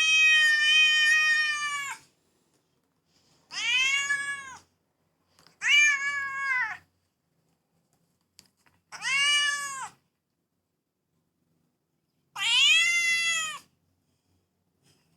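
Domestic cat meowing five times, long drawn-out meows of one to two seconds each with silent gaps between them. The first is the longest and falls in pitch at its end; the others rise and then fall.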